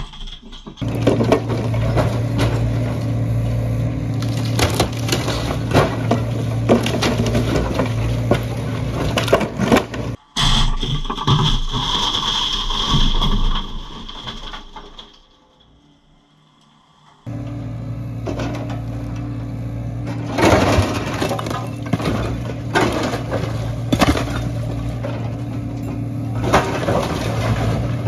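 Excavator engine running steadily while its bucket rips through a timber roof and cinder-block walls, with repeated cracking and crashing of splintering wood and falling debris. Partway through, the sound drops low for about two seconds before the engine and crashing resume.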